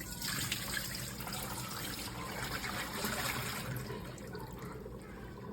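Water running and trickling over a steady low motor hum, typical of the Dreame L10s Ultra's base station washing its mop pads.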